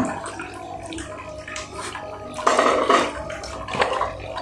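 Close, wet chewing and lip-smacking of fried chicken, with the cardboard chicken box being handled. A louder stretch of eating noise comes about two and a half seconds in.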